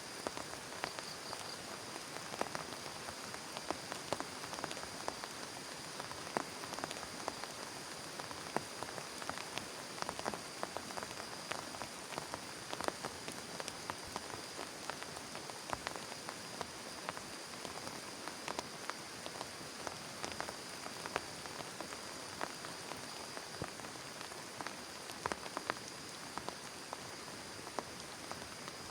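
Steady rain with many separate drops tapping sharply and irregularly on a surface.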